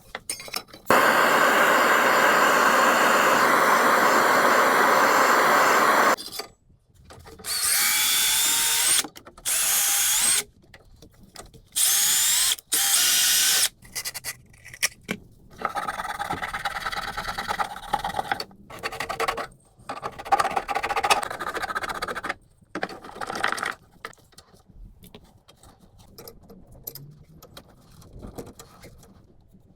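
Power tool running: one long run of about five seconds, then four short runs of about a second each with a rising whine, followed by lighter clicks and rattles.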